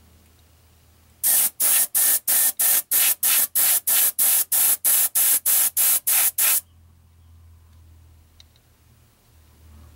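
Siphon-feed airbrush spraying paint in short, quick pulses, about three a second for some five seconds, then stopping.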